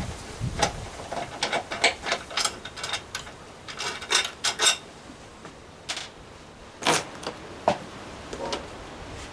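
Irregular small metallic clicks and clinks of a screwdriver and the mounting hardware of a chrome grab rail being worked on a Vespa scooter. A few louder separate knocks follow near the end.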